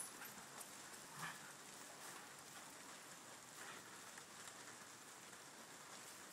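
Near silence: faint background hiss, with one soft tick about a second in.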